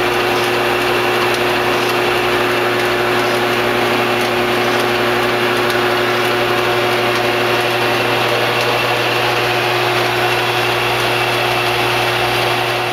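Blanchard No. 18 42-inch rotary surface grinder running under power: a steady, even machine hum with a constant higher whine.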